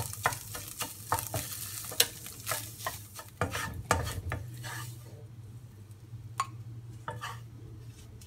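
Wooden spatula scraping and clicking against a nonstick pan as scrambled egg is stirred over a light sizzle for about the first five seconds. After that there are only a few scattered clicks as the egg is scooped out into a glass bowl.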